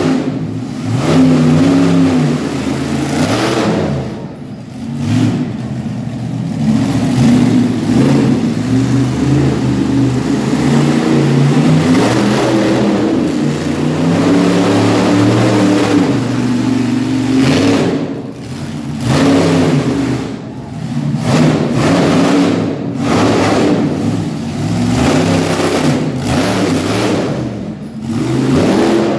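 Monster truck engine running hard, its pitch rising and falling as the throttle is worked, with several brief lifts off the throttle where the sound drops and then climbs again.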